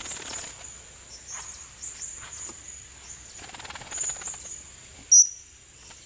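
High, thin chirps of a blue-crowned hanging parrot, with one short, sharp, loud chirp about five seconds in, over a steady high-pitched insect drone.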